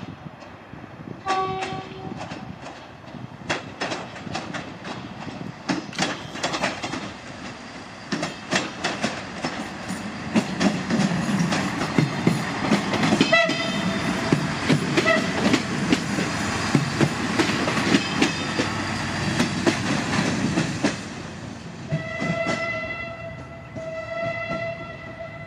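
A CFR Siemens Desiro diesel multiple unit passing close on station tracks. It gives a short horn toot about a second in, then its running noise and the clickety-clack of its wheels over rail joints and points swell as it goes by, loudest through the middle. A held high-pitched tone sounds near the end.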